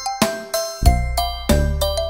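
Background music: a light melody of quick, ringing struck notes over a steady low beat.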